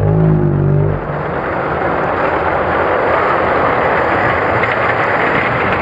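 Die-cast Hot Wheels toy cars rolling down an orange plastic track in a steady, even rumble of small wheels on plastic. It opens with a louder low hum for about the first second.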